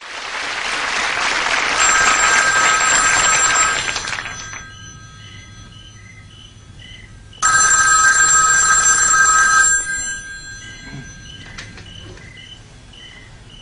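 Landline telephone bell ringing twice, each ring about two seconds long, with a pause of about three and a half seconds between them.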